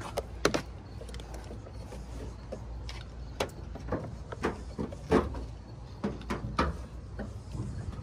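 Irregular clicks and knocks, a dozen or so, from jumper cables being handled and clamped between two vehicles, over a steady low rumble.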